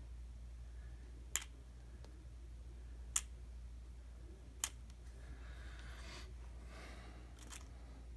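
Four sharp, separate clicks, one every second or two, with a soft rustle between them, from small metal padlock parts being handled while the lock is taken apart.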